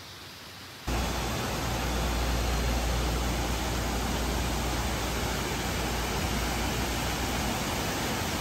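Stream rushing over a small cascade: a steady, even rush of water with a deep rumble that starts suddenly about a second in, after a faint hiss.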